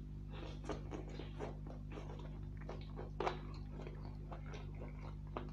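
Close-up eating sounds of a man chewing chicken curry and rice by hand: irregular wet chewing clicks and lip smacks, loudest a little after three seconds in, over a steady low hum.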